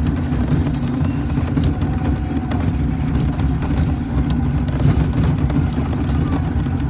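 A vehicle's engine running steadily with a low hum while it is being driven.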